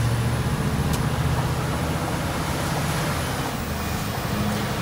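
Scania R 730's 16.4-litre V8 diesel engine running steadily under way, a low even drone heard from inside the truck's cab.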